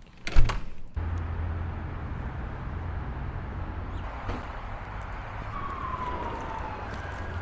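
A loud thump, then the steady low rumble of vehicle traffic. Near the end a high tone falls slowly in pitch, twice.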